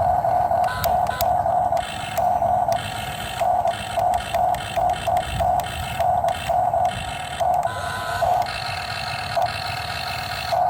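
Electric motors of a Huina radio-controlled toy excavator whining in short, uneven bursts as its controls are worked, over a low rumble.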